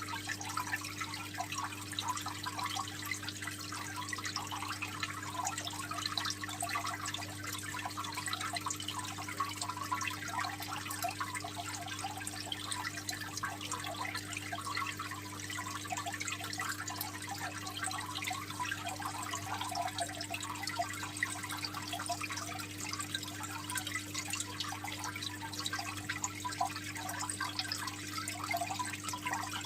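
Aquarium water trickling and splashing steadily, a dense patter of small drips and bubbles over a steady low hum.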